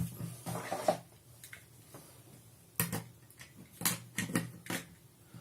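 Scattered light clicks and knocks of hard plastic being handled: a USB wall charger and USB tester being plugged in. The clicks come in a few small groups, with the busiest cluster near the end.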